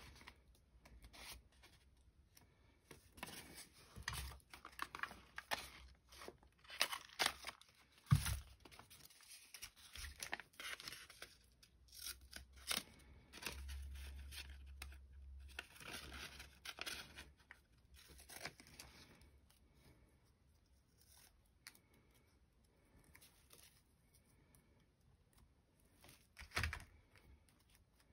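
Paper being handled and cut with scissors: intermittent rustling, snipping and scraping of gel-printed collage paper, with a sharp knock on the table about a third of the way in and another near the end.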